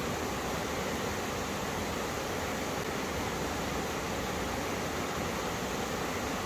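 Mountain stream water rushing steadily where two valley streams meet, an even, unbroken noise.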